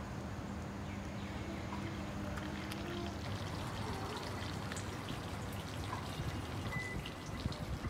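Hot milk poured slowly in a steady stream from a glass jug into a porcelain teacup over salep powder.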